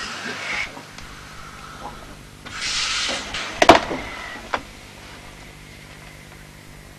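Two short bursts of hissing, then a sharp clank, the loudest sound, and a lighter knock about a second later, over a steady low hum.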